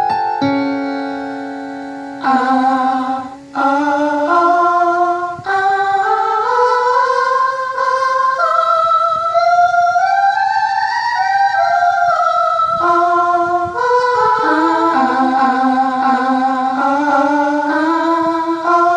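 Music for a speaker test: a held note fades over the first two seconds, then a voice sings a slow melody of long, gliding notes with instrumental accompaniment.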